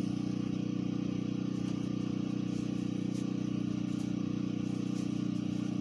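Steady low hum of a running motor or appliance, unchanging, with a couple of faint clicks.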